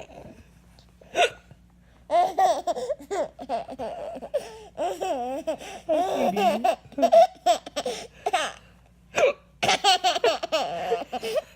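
A woman hiccuping, a short sharp hiccup about a second in and another about nine seconds in. Each one sets off a baby's long runs of high-pitched belly laughter.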